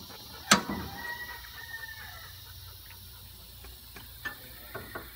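Go-kart shoved against its held hydraulic brake: a sharp clunk about half a second in, then a thin high squeal for about a second that drops at its end, and a few light knocks.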